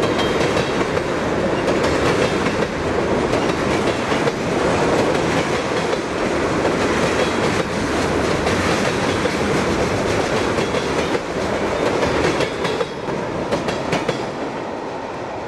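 Freight train tank cars rolling past at close range at about 25 mph: a steady rumble of steel wheels on rail with clickety-clack over the rail joints, easing slightly near the end.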